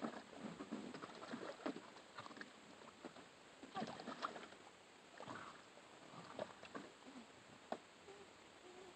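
Faint, irregular splashing and sloshing of shallow water in a plastic kiddie pool as German shepherd puppies paw and move about in it, with a few brief squeaky puppy vocalizations.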